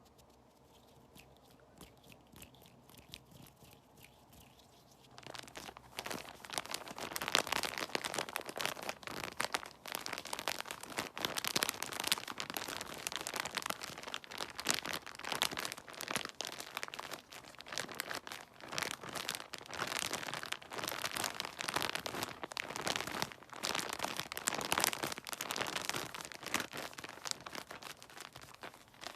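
ASMR trigger sounds: dense, irregular crinkling and crunching that begins about five seconds in after a quiet stretch of faint ticks.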